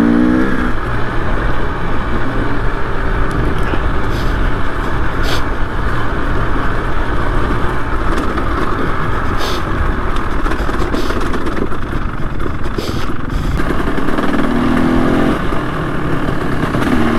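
Trail motorcycle engine running as the bike is ridden along, its pitch shifting with the throttle near the start and again about fourteen seconds in. A few brief sharp clicks sound over it.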